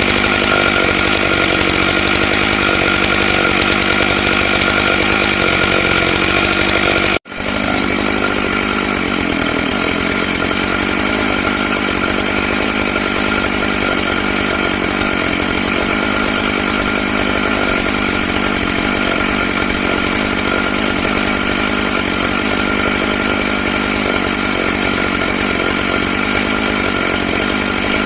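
Stihl MS661 two-stroke chainsaw running steadily at high revs with a ripping chain, milling a pine log lengthwise in a chainsaw mill. The sound cuts out for a split second about seven seconds in.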